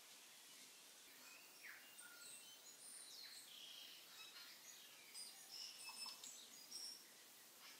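Faint birds chirping: scattered short, high chirps and whistles, some sliding up or down in pitch, thickest about five to seven seconds in, over a low hiss.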